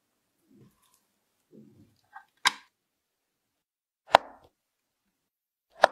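Soft handling rustles, then three loud, sharp clicks nearly two seconds apart. They come from a metal cake tin being handled and a knife cutting down through a layered cake onto a wooden board.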